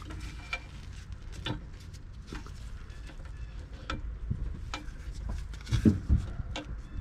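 Handling noise as a plastic-bodied macerator pump is worked by hand onto its metal mounting bracket: scattered light clicks and knocks, with a couple of louder thumps about six seconds in, over a low rumble.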